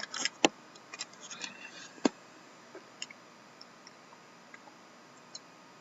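Handling noises: a quick run of sharp taps and clicks, the loudest about half a second and two seconds in, followed by a few faint scattered ticks.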